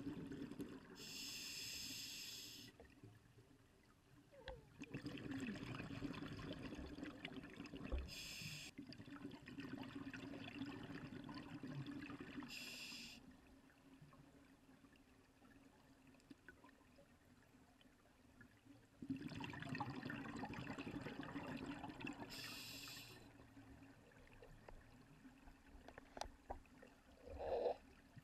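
A scuba diver breathing through a regulator underwater, with short hissing inhalations and long bubbling exhalations. Four breaths come in and there is a quiet pause of several seconds near the middle.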